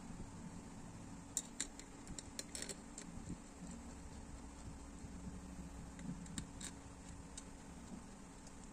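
Light metallic clicks and taps as bolts and small parts are handled and set into a high-pressure fuel pump's aluminium housing. A cluster comes about one and a half to three seconds in, and a few single clicks come later, over a low steady background hum.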